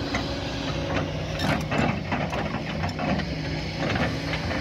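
Diesel engine of a hydraulic excavator running steadily, with a spell of clanks and rattles of metal and earth about one and a half to two and a half seconds in.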